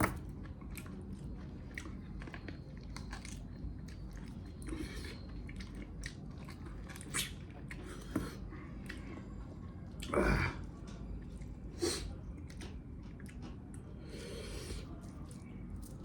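A person biting and chewing pieces of cooked mutton leg, close to the microphone: a steady run of small mouth clicks, with a louder burst about ten seconds in.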